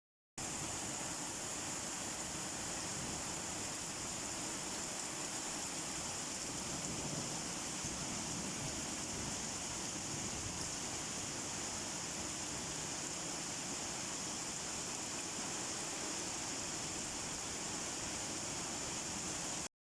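Steady rain falling, an even hiss strongest in the treble. It cuts to dead silence for a moment just after the start and again just before the end.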